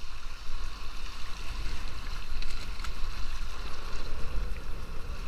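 Wind buffeting the microphone with a low rumble, over water splashing and rushing along a small sailboat's hull in choppy water, with a few light knocks.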